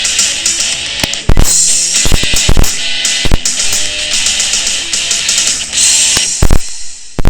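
Rock music with electric guitar and drums, cut through by several sharp, loud cracks about a second in, between two and three and a half seconds, and near the end.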